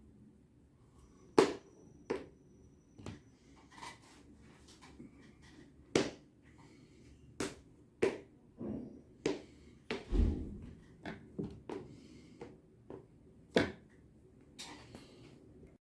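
Irregular sharp taps and knocks of hand work on shoes and tools, about a dozen spread unevenly, with one heavier thump about ten seconds in.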